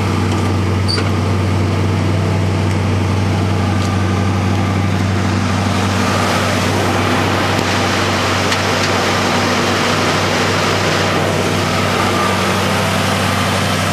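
Rebuilt Ford 289 Cobra V8 with an aftermarket cam and a Holley carburetor, breathing through a new dual exhaust, idling smoothly and steadily.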